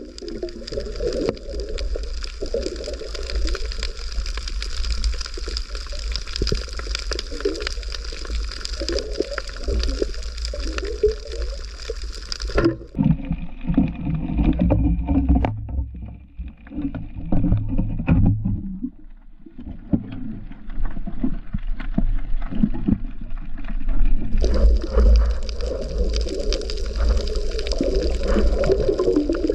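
Muffled underwater gurgling and water movement picked up by a camera in its waterproof housing. A steady high whine runs over it, cuts out a little under halfway through, and comes back near the end.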